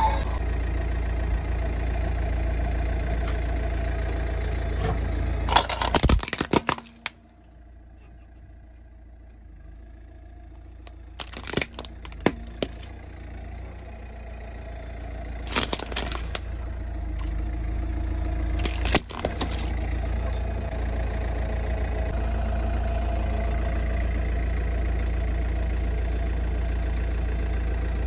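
Car engine idling with a steady low hum while a tyre crushes a hard plastic dinosaur grabber toy. Loud cracking and snapping of plastic comes about six seconds in, then again around twelve, sixteen and nineteen seconds.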